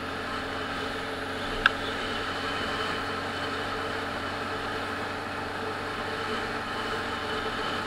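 Motorcycle engine and exhaust running steadily while riding along, heard from the rider's seat, with one sharp click just under two seconds in.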